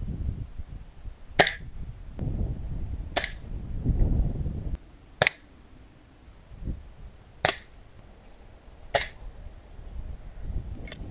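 BSA Scorpion .22 spring-piston air pistol fired five times, each shot a sharp crack, spaced about two seconds apart.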